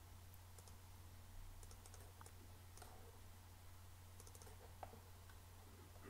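Near silence with a low steady hum and a few faint computer-mouse clicks, some in quick little clusters, as points are placed and curves selected in the CAD program.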